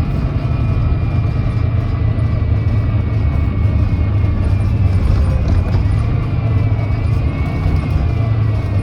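Volvo D9B 9.3-litre diesel engine of a Volvo B9TL double-decker bus running steadily with a deep drone and a thin high whine above it that wavers slightly in pitch.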